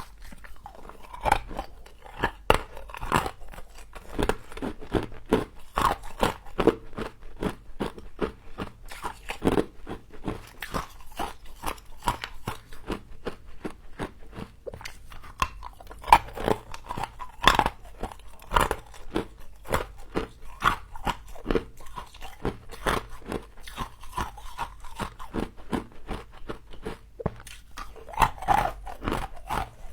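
Close-miked biting and chewing of crisp frost, a steady run of sharp, irregular crunches.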